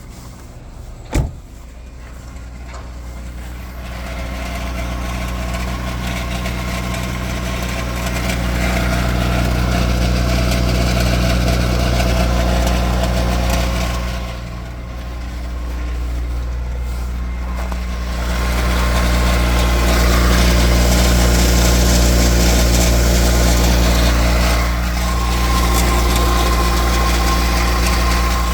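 Car engine running with its sound swelling louder in stages and dipping briefly twice, with a sharp click about a second in and a higher whine heard at times, especially near the end. The owner takes these for extraneous noises from the automatic transmission.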